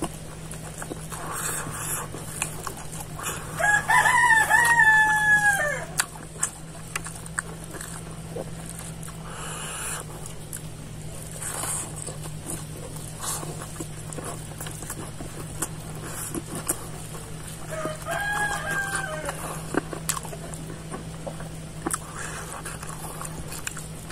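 A rooster crowing twice: a long crow about four seconds in and a shorter, fainter one past the middle. Between the crows are small clicks and smacks of a man eating rice by hand close to the microphone.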